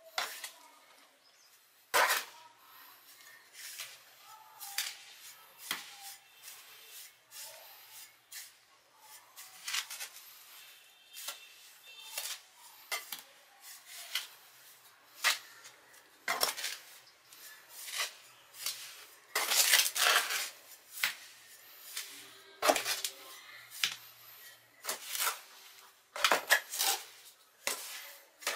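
Irregular metallic clinks, taps and knocks of sheet-metal parts and tools being handled and worked, a few with a short ring, with a busier, louder run of knocks about two-thirds of the way through.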